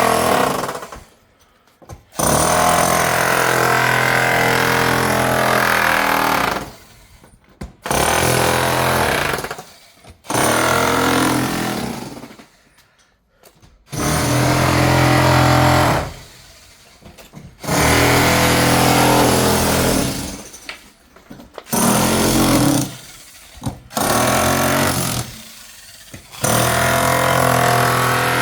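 Electric demolition hammer breaking concrete or tile, run in repeated bursts of two to four seconds with short pauses between them, about nine bursts in all.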